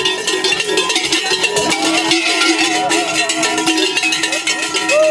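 Many large cowbells and hand bells shaken together in a dense, continuous clanging, with several steady ringing tones. A long call sliding down in pitch starts near the end.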